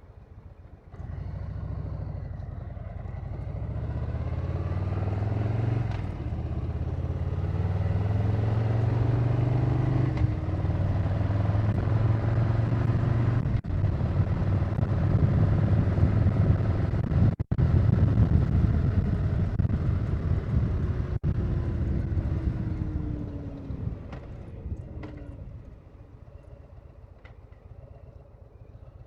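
Harley-Davidson Low Rider S V-twin engine under way, pulling harder through the gears with brief sharp dips at shifts. Near the end it eases off and drops to a quieter running sound.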